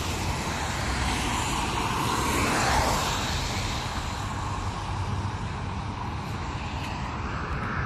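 Distant outdoor tornado warning sirens winding down at the end of a test, heard as a smeared drone that swells about three seconds in and then eases off, over a low rumble.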